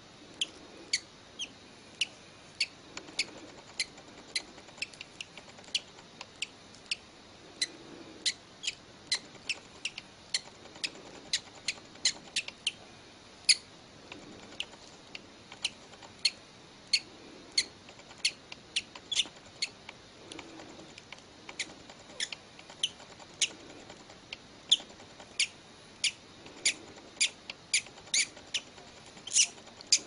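Newly hatched bird peeping as it breaks out of its egg: a rapid, irregular string of short, high-pitched cheeps, about two a second.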